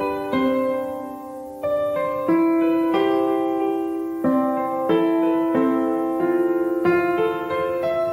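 Background piano music: gentle chords struck about once a second, each note left to ring.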